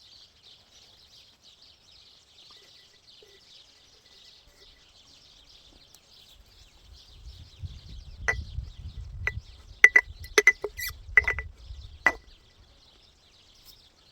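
Glass jar being handled while chopped plantain leaves are packed into it: rubbing and rustling in the second half, with a run of about nine sharp clinks that ring briefly. A faint steady high hiss sits underneath.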